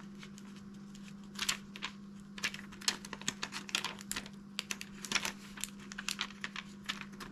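Transfer tape being peeled slowly off vinyl lettering on a metal bookmark: an irregular run of small crackles and ticks, starting about a second and a half in.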